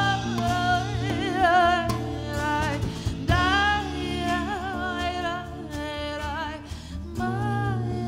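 Live band music: a sung vocal line with wavering, ornamented notes over acoustic guitars, bass and drums.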